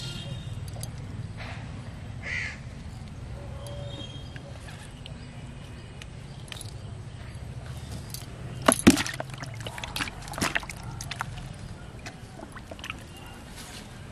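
A catfish splashing into a plastic basin of water: a cluster of sharp splashes and knocks about nine seconds in, and another shorter one a moment later, over a low steady outdoor background with a few short bird-like calls.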